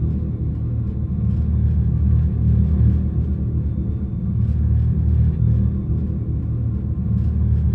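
Dodge Charger Daytona SRT concept's Fratzonic Chambered Exhaust, the electric car's synthetic exhaust sound, producing a deep, steady idle rumble with no revving.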